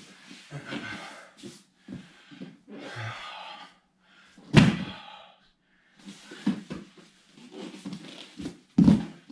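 A person's body thudding, shuffling and rolling on foam floor mats during solo grappling drills, with heavy breathing. The two loudest thumps come about halfway through and near the end.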